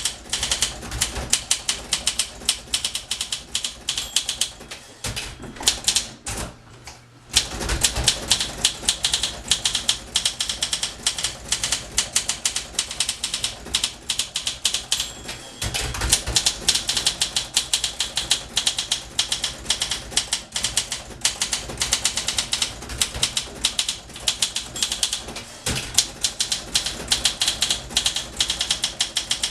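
1961 Olympia SM 4 portable typewriter being typed on fast: a dense run of key strikes, with a short pause about six seconds in and a couple of heavier thumps among the keystrokes.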